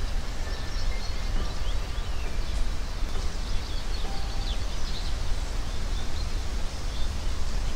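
Outdoor ambience from an eagle nest camera's microphone: a steady hiss with a low rumble, and faint distant small birds chirping a few times in the middle.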